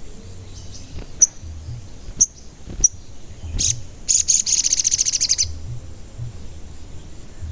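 Sogon (sunbird) calling: a few sharp, high single chirps about a second apart, then a fast, high trill of rapid repeated notes lasting about a second and a half.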